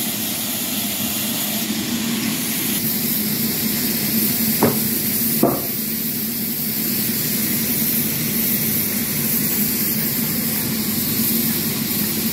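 Sawmill machinery running steadily, a hum with a hiss over it, and two sharp knocks a little less than a second apart about halfway through.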